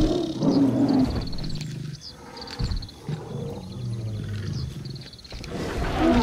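A large animal growling and roaring in a series of low, drawn-out growls about a second long each, with short high chirps between them.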